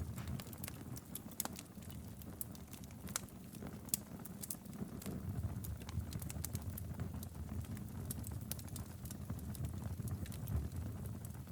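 Wood fire burning in a fireplace: irregular sharp crackles and pops over a low steady rumble of the flames.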